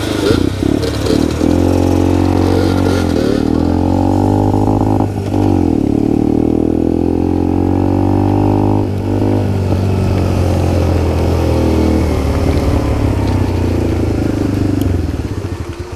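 Small minibike's engine accelerating through the gears, its pitch climbing and then dropping at each gear change, about three times, and falling away near the end as the throttle eases off.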